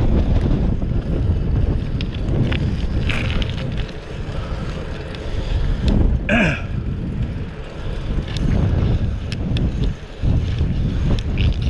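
Wind buffeting the action camera's microphone while riding a bicycle on asphalt, a steady rumble with scattered light ticks. About six seconds in comes a brief falling squeak.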